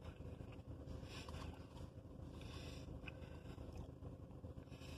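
Faint chewing of a chocolate cupcake inside a car, over a steady low hum.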